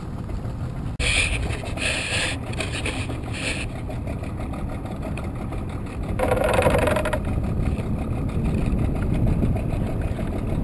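Small boat's outboard motor running slowly and steadily at low speed while trot-line crabbing. A few short noises come about one to three seconds in, and a louder one lasting about a second comes around six seconds in.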